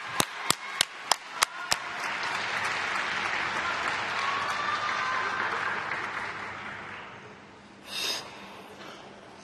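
Arena audience clapping in unison, about three claps a second, which breaks up after a couple of seconds into general applause and cheering that swells and then fades out. Near the end comes one short, loud shout from the stands.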